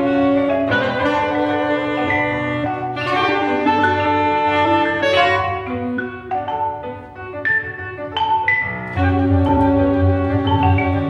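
Live chamber ensemble of piano, saxophones and mallet percussion playing syncopated, bebop-influenced music: held chords under ringing marimba and vibraphone notes. About halfway through the texture thins to scattered struck notes, and the full ensemble comes back in near the end.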